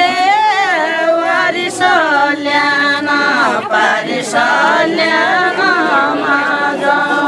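A group of women singing a traditional folk song together, unaccompanied, in phrases broken by short pauses.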